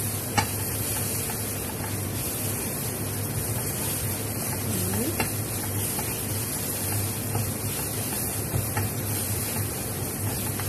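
Garlic, ginger and onion frying in butter with curry powder in a nonstick frying pan, stirred with a wooden spatula: a steady sizzle with a few sharp taps of the spatula on the pan, the loudest about half a second in.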